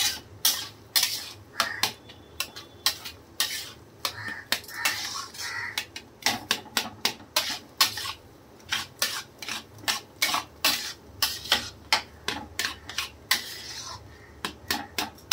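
Flat metal spatula scraping and clinking against a metal kadhai as thick water-chestnut-flour halwa is stirred, in quick, uneven strokes about two a second.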